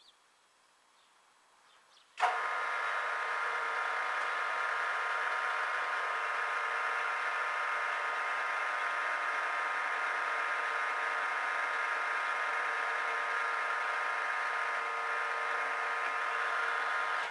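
Bench milling machine starts about two seconds in and runs at a steady speed with an even whine while the drill in its chuck is fed down to a clamped metal plate, then switches off at the end.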